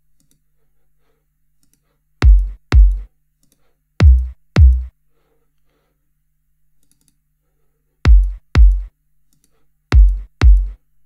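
Synthesized electronic kick drum from the KickDrum plugin, played four times as pairs of hits about half a second apart. Each hit is a sharp click that drops quickly in pitch into a short low boom.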